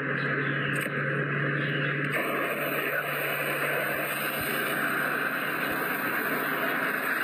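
Small fuse-lit smoke ball firework hissing steadily as it burns and pours out coloured smoke. The hiss brightens about two seconds in, and a low hum runs under it before that.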